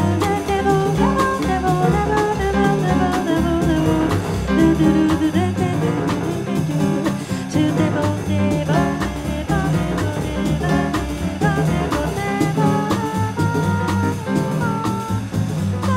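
Live small-group jazz: an upright double bass and a drum kit with cymbals keep up a busy, steady groove, with a female singer's melodic line on top.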